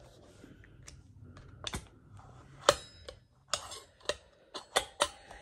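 A run of sharp clicks and taps from handling a new drinking cup, its lid and its straw. The loudest click is a little under three seconds in.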